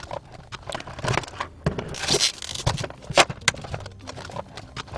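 Clear plastic blister packaging being handled and flexed, crackling and scraping irregularly with a few sharper clicks.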